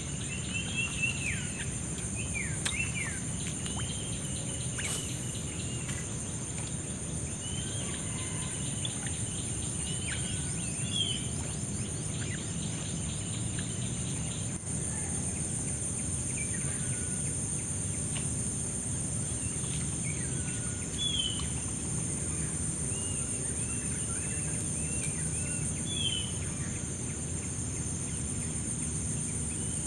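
Lakeside morning ambience: a steady, high-pitched insect drone runs throughout, with birds chirping and whistling in short calls here and there over a low background rumble.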